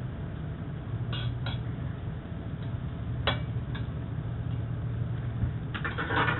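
Metal ladle knocking against a carbon-steel wok: a few separate sharp clicks, then a short clatter near the end as the ladle is set down in a second wok. A steady low hum runs underneath.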